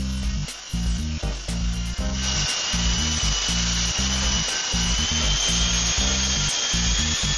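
Background music with a steady beat. From about two seconds in, the antique Honey Bee electric RC helicopter's small motor and gears give a steady high-pitched whine at full throttle.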